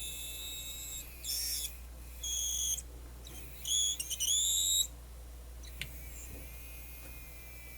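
Small electric motor of the Luxman KX-101 cassette deck's motorized front-panel mechanism whining in three short, high-pitched runs, the last and longest shifting in pitch, over a steady low mains hum. The motor has torque but the mechanism is not driving the panel through.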